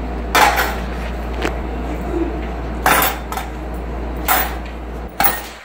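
Coins dropped into a small pail, clinking four times a second or so apart.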